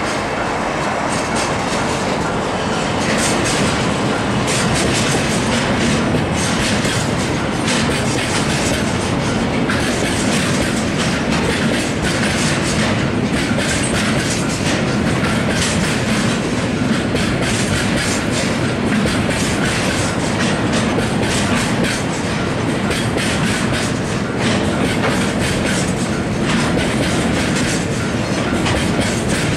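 Freight train of railway tank wagons rolling past at a level crossing: a steady rumble with a continual irregular clickety-clack of wheels striking rail joints.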